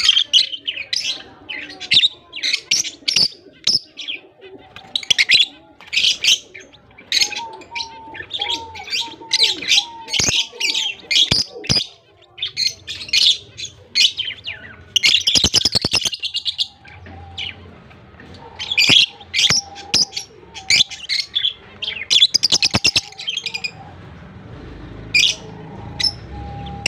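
Lovebirds chirping in a steady stream of short, high-pitched chirps, with a brief rapid clicking burst about halfway through; the chirps thin out near the end.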